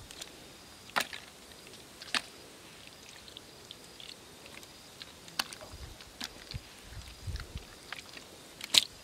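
Hands digging and scraping in dry, cracked mud: scattered sharp crunches and scrapes of breaking soil clods, with a few dull thumps in the second half and the sharpest crunch near the end.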